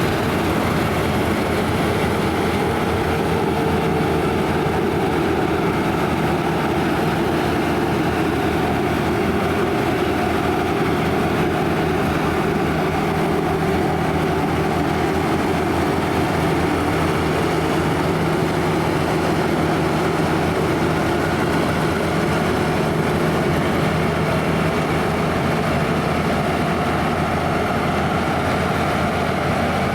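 Claas Lexion 580 Terra-Trac combine harvester running steadily while combining barley: a continuous engine and machinery drone with several steady held tones and no change in pitch.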